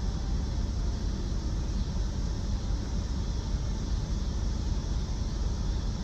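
Steady low rumble and hiss inside the cabin of a parked car with its engine running, with no distinct events.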